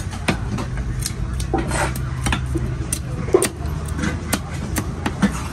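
A knife chopping spiny lobster on a wooden block: irregular sharp knocks and shell cracks, about two or three a second.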